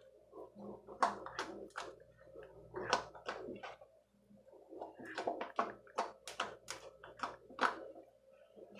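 Activated slime being mixed to work glitter in, giving a string of irregular sticky clicks and squelches in clusters.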